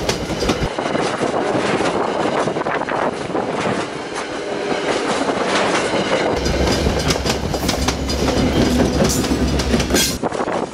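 MBTA CapeFLYER passenger train passing close by at speed: a loud rush of coaches with the wheels clicking over the rail joints. The F40 locomotive pushing at the rear goes by near the end.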